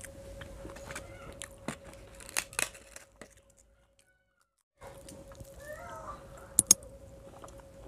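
Close eating sounds of fingers working rice and chewing, with a few crisp snaps between two and three seconds in, over a steady faint hum. The sound then cuts out completely for about a second and a half, and near the end two loud sharp clicks come close together as a like-and-subscribe animation plays.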